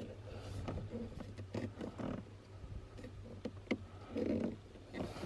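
Scattered clicks and knocks of hands pulling the rubber pad off a car's metal pedal, with a few low grunt-like sounds and a steady low hum beneath.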